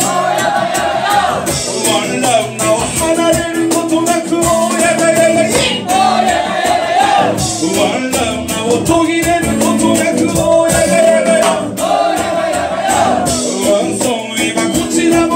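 Live reggae song with acoustic guitar and singing over it.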